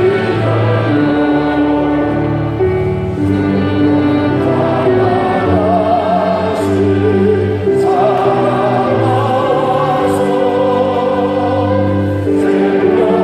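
Congregation singing a hymn together, many voices holding long notes that change every second or two.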